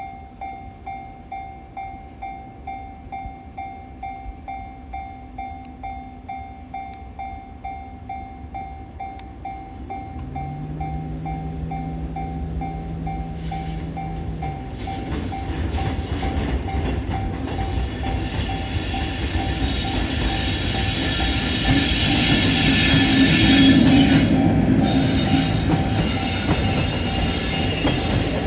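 Japanese railway level-crossing bell ringing at about two strikes a second, while a train led by an EF65 electric locomotive comes through, its rumble and wheel noise building about halfway in to a peak near the end and then easing slightly. A low steady hum sounds for a few seconds before the train arrives.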